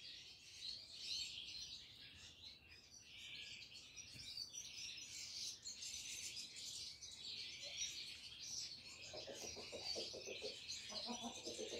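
Dense, continuous chirping of many small birds. From about nine seconds in, lower, pulsing calls join it, typical of pigeons cooing in the loft.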